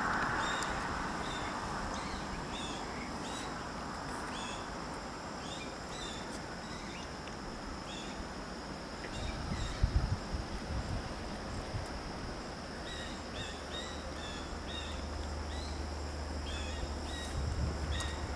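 Birds chirping repeatedly over a steady high insect drone, with a few low thumps about halfway through. A low, steady rumble from the approaching diesel freight locomotives comes in about two-thirds of the way through.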